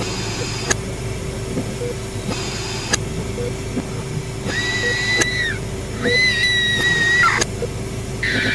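Eerie horror-ambience bed: a steady electrical hum over a low noisy rumble, with a few sharp clicks. About halfway through, a high wavering tone sounds twice, each held for about a second and bending off at its ends.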